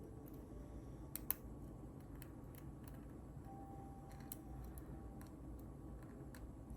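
Faint, scattered clicks and scrapes of a lock pick and tension wrench working the pins in a lock's keyway, with one sharper click about a second in. The pins are getting bound up rather than setting, as the picker suspects.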